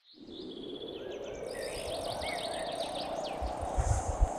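Nature ambience fading in: birds chirping in a run of quick down-slurred notes over a steady high insect buzz that comes in about a second and a half in, with a low background hush.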